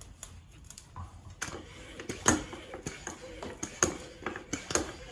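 Small metal parts and tools clicking and clinking irregularly as bicycle hub bearings are greased and fitted, with a couple of sharper knocks about two and four seconds in.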